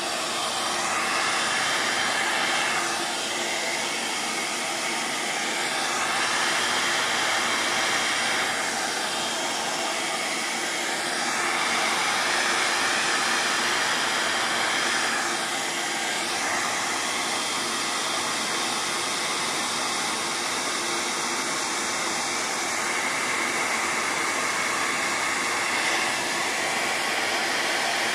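Hair dryer blowing steadily, drying a freshly painted layer of paint; its rush changes in tone every few seconds.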